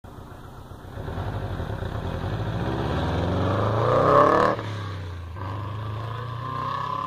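A turbocharged 2.0 L EJ20K flat-four Subaru WRX with an HKS Hi-Power catback exhaust accelerates hard past, its engine note climbing to a peak about four seconds in. The throttle then snaps shut and the note drops abruptly as the car pulls away, running more steadily.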